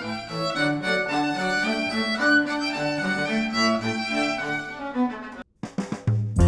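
Recorded music with violin-like bowed strings holding sustained notes, played back through studio headphones and picked up by measurement microphones. It cuts off abruptly about five seconds in, and after a short gap a different piece starts with strong bass notes and sharper plucked or struck attacks.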